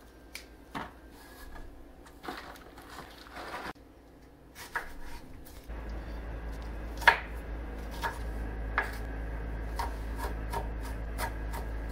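Kitchen knife chopping an onion on a wooden butcher-block surface: scattered knocks that settle into steady, quicker chopping of about three strokes a second near the end. Before that, soft snapping and rubbing as broccoli florets are broken apart by hand.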